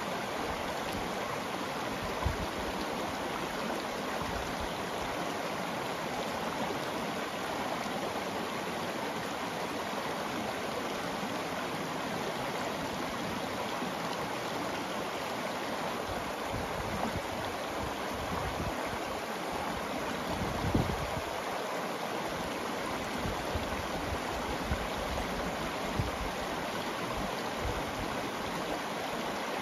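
Shallow rocky stream running over cobbles and a small riffle: a steady, even rush and babble of water. A few brief low thumps stand out, about two seconds in and twice more in the second half.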